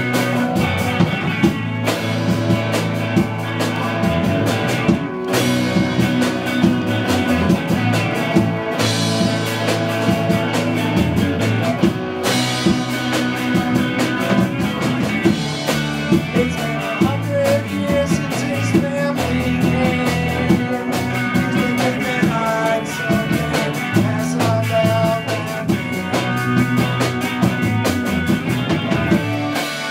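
Live rock band playing: electric guitars over a drum kit keeping a steady beat, loud and continuous.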